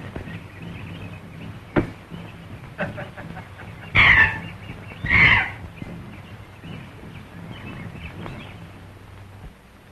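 Monkeys screeching: two loud, short screeches about a second apart near the middle, with a few fainter calls and clicks around them. A steady low hum of an old optical film soundtrack runs underneath.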